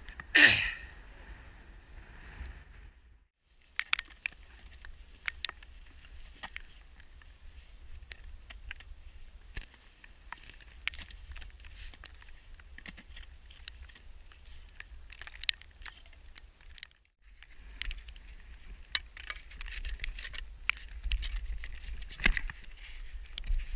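Metal clinks and scrapes of crampons and climbing gear on snowy rock during a winter scramble, over a steady low wind rumble on the microphone. A short loud rush of noise about half a second in, and the clinking grows busier near the end.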